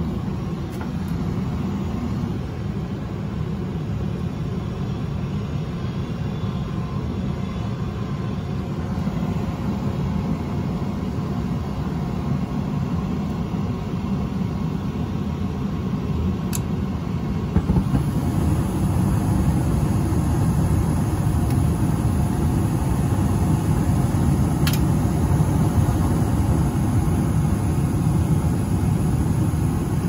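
Johnson Controls gas furnace running on a trial for heat: a steady machine hum that grows fuller and a little louder about eighteen seconds in, with the burners lit.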